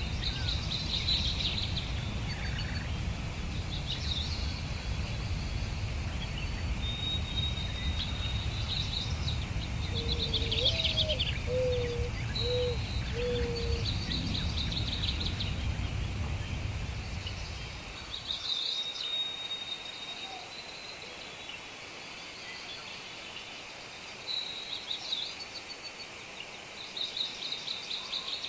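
Birdsong: a small bird repeating short, high trills and buzzy phrases every second or two, with a run of four lower notes near the middle. A low background rumble underlies it and drops away about two-thirds of the way through.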